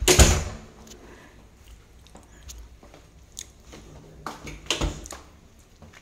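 Wooden wardrobe door being handled and opened: one loud thump right at the start, then a few knocks and clunks about four to five seconds in as the door comes open.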